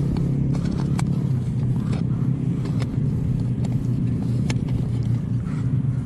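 A steady low engine drone that holds unchanged throughout, with a few faint ticks over it.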